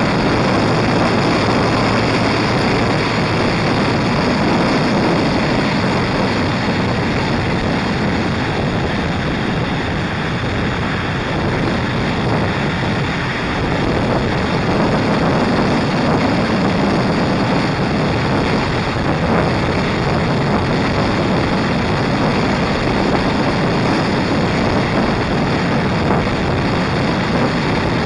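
Steady rush of wind over a motorcycle-mounted camera's microphone while riding at road speed, with the motorcycle's engine and tyre noise mixed underneath.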